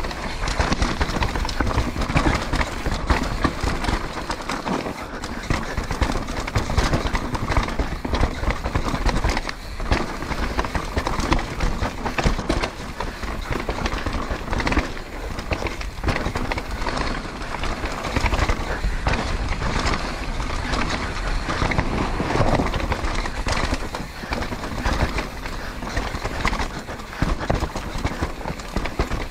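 2018 Santa Cruz V10 downhill mountain bike ridden fast over roots and rocks: tyres rumbling on the dirt and the bike rattling with many small knocks and clatters, with a steady low rumble underneath.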